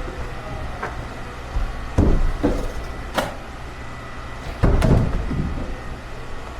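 A few sharp knocks and two heavier low thumps over a steady low hum.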